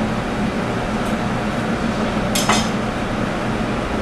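A knife knocking against a cutting board in one short clatter while portioning a venison fillet, about two and a half seconds in, over the steady hum of kitchen air handling.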